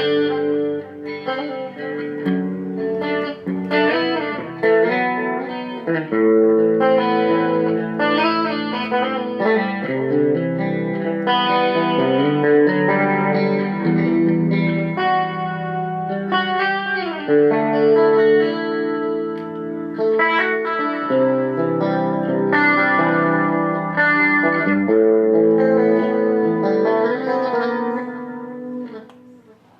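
Electric guitar played through a Zoom G3Xn multi-effects pedal on its stereo chorus patch: ringing chords and picked melodic lines, fading out near the end.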